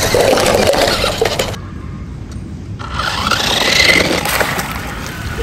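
Stacked plastic cups clattering down as a toy RC car drives into the tower. After a cut, the toy car's small electric motor whirs as it runs over stone paving.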